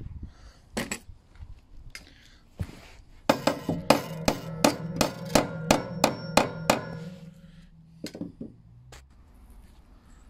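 Claw hammer driving short nails through a steel joist hanger into a timber joist: a few separate blows, then a quick run of about a dozen ringing blows lasting three or four seconds, then two more blows near the end.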